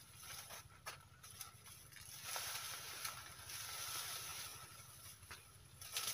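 Dry banana leaves rustling, with scattered snaps and cracks in the first two seconds, as a person moves about high in a banana tree; the rustling thickens from about two seconds in. A faint steady high tone runs underneath.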